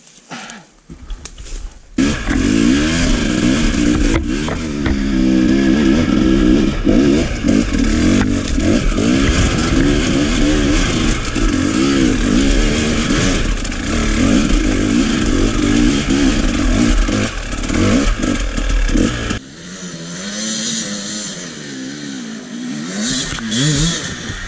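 KTM 300 two-stroke enduro motorcycle engine revving up and down under load on a rocky trail climb, loud from about two seconds in. Near the end it drops to a softer, uneven run.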